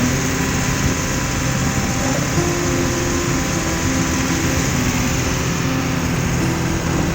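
An engine running steadily.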